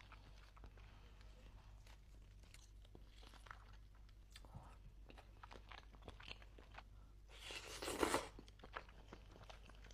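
Close-miked eating: soft chewing and small crunching bites, with a louder, longer bite or slurp at about eight seconds.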